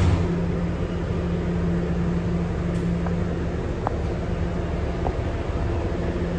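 Inside an R211A subway car running along the track: a steady rumble with an even, low motor hum and a few faint ticks.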